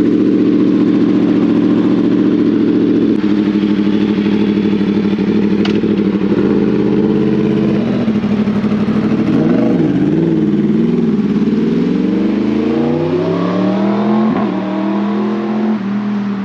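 2022 Yamaha YZF-R1's crossplane inline-four running through a decat titanium KO exhaust, very loud. It holds a steady note for about eight seconds, then the pitch wavers under the throttle and rises as the bike pulls away, fading near the end.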